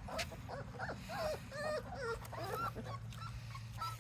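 Several young puppies whimpering and whining in short, overlapping high calls that rise and fall, over a steady low hum.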